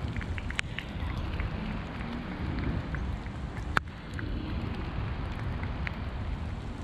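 Wind buffeting the microphone outdoors, a low uneven rumble, with scattered small ticks and one sharp click a little under four seconds in.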